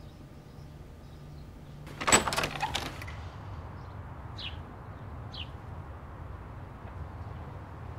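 A front door being unlatched and opened: a short clatter of handle and lock about two seconds in. Two brief bird chirps follow from outside.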